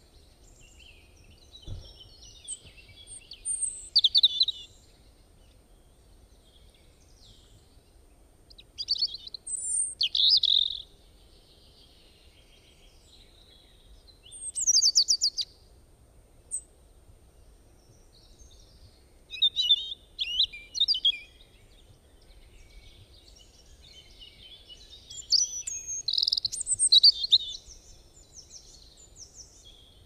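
Songbirds singing high-pitched phrases of chirps and trills that come in five separate bursts, a few seconds apart.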